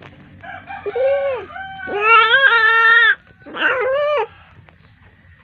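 Calico cat yowling in labour during a difficult birth, a kitten partly delivered: three loud, drawn-out wavering calls, the middle one the longest.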